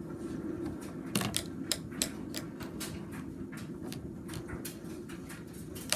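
Irregular sharp clicks and taps, a few a second, over a steady low hum.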